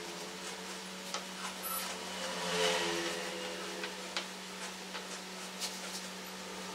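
Masking tape pulled off its roll with a brief ripping rasp about two and a half seconds in, and pressed along the edge of a wooden tabletop with a few light taps and rustles, over a steady low hum.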